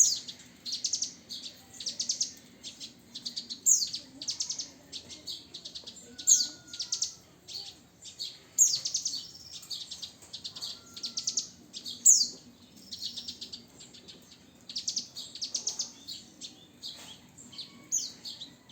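Javan bush lark (branjangan, Mirafra javanica) singing a continuous, rapid song of fast trills and sharp downward-sweeping high notes.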